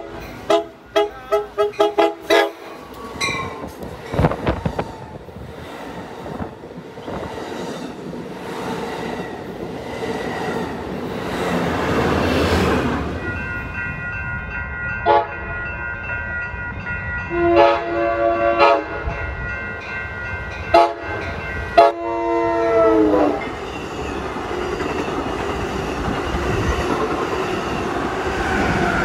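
Amtrak Pacific Surfliner cab car horn sounding a quick series of short blasts. The train then rushes past with wheel clatter, louder as it nears. Then another Surfliner cab car horn sounds several blasts; the last, longer one drops in pitch as the train passes.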